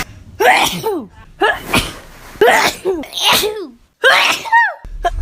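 A person in a sneezing fit: about five voiced sneezes in quick succession, roughly a second apart, each ending in a cry that falls in pitch.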